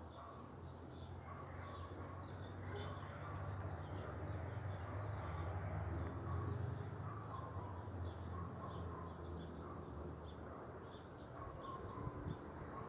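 Birds chirping and calling in short, repeated notes throughout, over a steady low rumble that grows louder for a few seconds in the middle.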